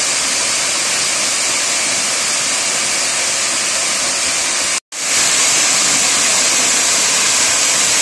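Waterfall pouring over rock ledges into a pool: a steady rushing hiss that cuts out for an instant just before five seconds in and comes back slightly louder.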